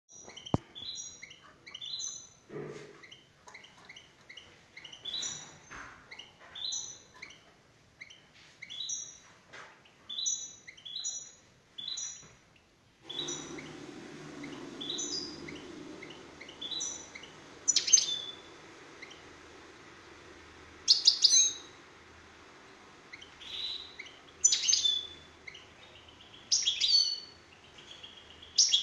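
Small caged songbird chirping: short high chirps about once a second, then louder, longer call bursts a few seconds apart in the second half. A steady low hum comes in about halfway through.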